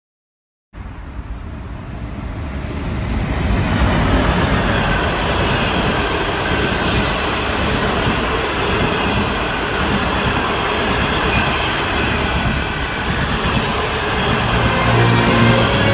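Passenger train of green, yellow-striped coaches running past at close range, its wheels on the rails making a dense, steady rushing noise. The noise starts suddenly and builds over the first few seconds, then holds.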